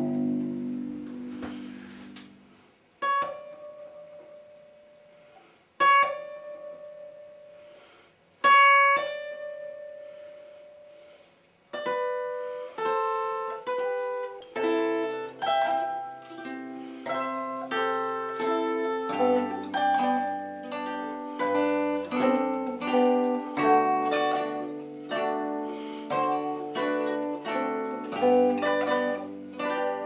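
Zither playing: a chord fades away, then three single plucked notes, each left ringing until it dies. From about twelve seconds in comes a continuous melody of plucked notes with lower bass notes sounding beneath it.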